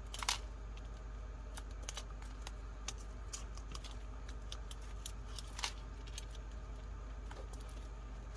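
Scattered small clicks and taps of paper and craft supplies being handled on a tabletop, over a steady low hum.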